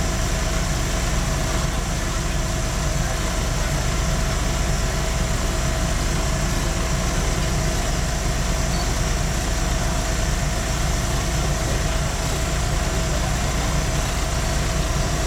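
A diesel railcar's engine idling steadily, heard from inside the driver's cab.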